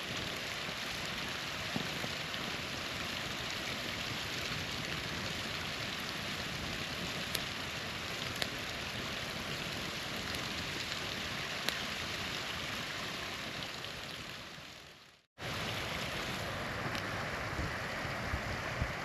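Small waterfall rushing steadily, with a few sharp campfire pops now and then. About fifteen seconds in, the sound fades out to silence for a moment and comes straight back, as at an edit.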